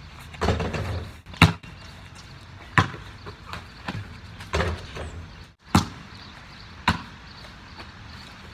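A basketball bouncing and hitting hard surfaces in a series of sharp, separate thuds spread over several seconds. The loudest comes about a second and a half in.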